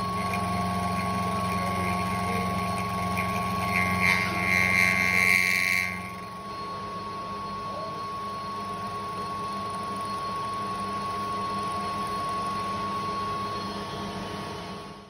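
Milling machine spindle running with an end mill cutting a metal plate, a harsher cutting noise that stops abruptly about six seconds in. The spindle then runs on with a steady hum and a thin steady whine.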